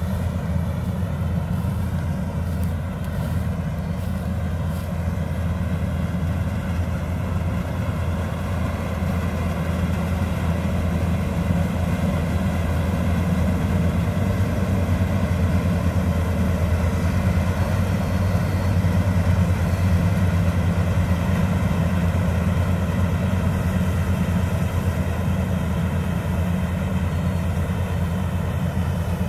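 Worldstar WS7.0 rice combine harvester running steadily while harvesting, a continuous engine and machinery drone that rises a little in the middle.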